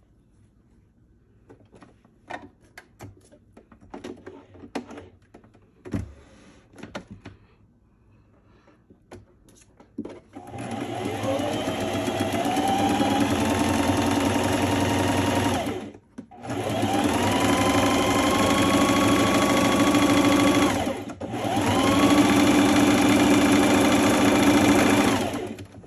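Electric home sewing machine stitching a seam in fabric in three runs of a few seconds each, with short stops between; each run speeds up at the start, then holds a steady whir. Before the first run there are only light rustles and clicks as the fabric is handled and positioned.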